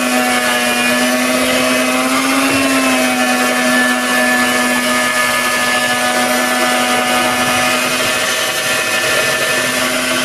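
Black & Decker electric hand mixer running steadily, its beaters churning a thick fish-soufflé batter in a plastic bowl: a constant motor whine whose pitch rises slightly for a moment about two and a half seconds in.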